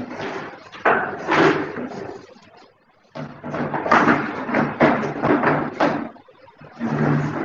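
Indistinct talking picked up over a video call's microphone, pausing about three seconds in and again near the end, then cutting off suddenly.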